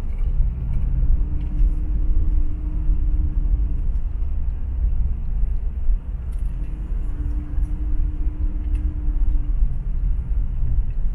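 Steady low rumble of a moving vehicle heard from on board. A faint steady drone comes in twice, each time for about three seconds.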